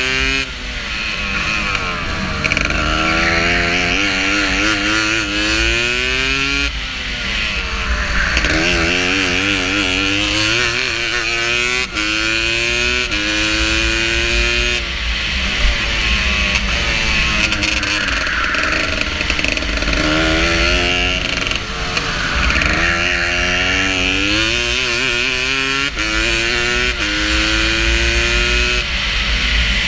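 Racing go-kart engine heard onboard, its pitch climbing as it accelerates and dropping sharply off the throttle into corners, about eight times over, with wind buffeting the microphone.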